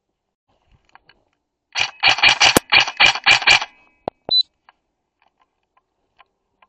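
A quick string of about eight shots from an airsoft rifle, then two sharp clicks and a short high beep.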